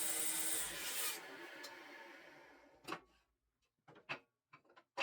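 Table saw running as it rips slats from old stair treads. It is switched off about a second in, and the sound fades away over the next second or so as the blade winds down. A couple of faint short knocks of wood being handled follow.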